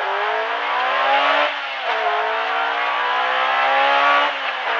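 Honda Civic rally car's engine heard from inside the cabin, accelerating hard: the pitch climbs, drops at an upshift about a second and a half in, climbs again and drops at a second upshift near the end, over steady road and tyre noise.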